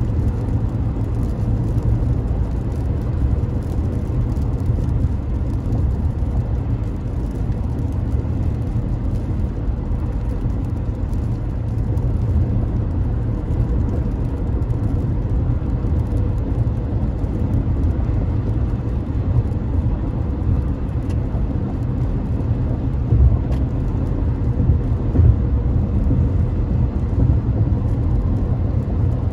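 Car driving along a road: a steady low rumble of road and engine noise, with a faint steady hum above it and a couple of brief bumps in the later part.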